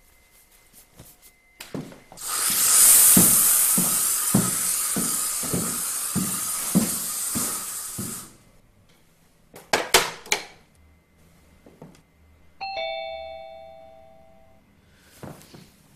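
Two-tone ding-dong doorbell chime, two falling notes that ring and fade over about two seconds, near the end. Before it comes a loud steady hiss with evenly spaced low thuds for about six seconds, then a few sharp clicks.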